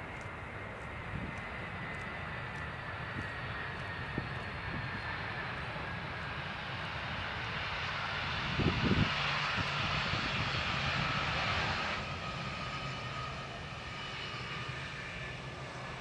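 Twin jet engines of a Boeing 757 freighter landing and rolling out: a steady whine, with a rush of engine noise that swells through the middle and drops off sharply about twelve seconds in. A brief low thump comes about nine seconds in.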